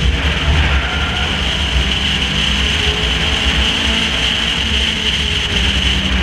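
Race car engine running steadily at speed, heard on board with heavy wind rush over the microphone and a deep low rumble.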